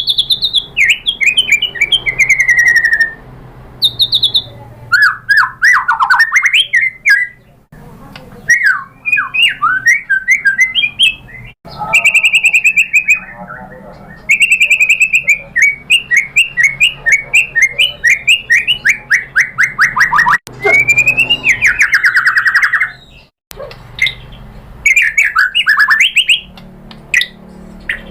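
White-rumped shama (murai batu) singing a loud, varied song: rapid runs of repeated chattering and whistled notes, one phrase after another with short breaks between.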